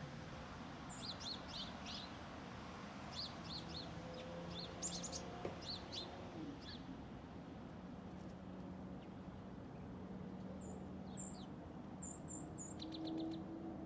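Songbirds chirping at dawn in short clusters of quick high notes, with a pause in the middle and a fast run of chirps near the end. A steady low hum lies underneath.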